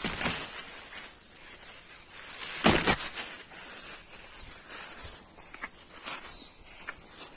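Footsteps and rustling through grass and undergrowth, with a louder cluster of rustles about three seconds in, over a steady high-pitched drone of insects.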